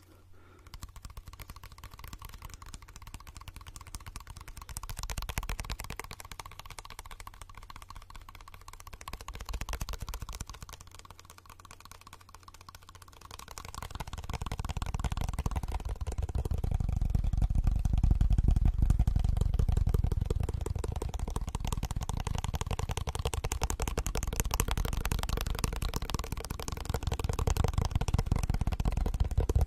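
Very fast fingertip tapping on a small hand-held black object right at the microphone, a dense rapid patter of clicks. About halfway through it gets louder and heavier, with deep thuds under the clicks.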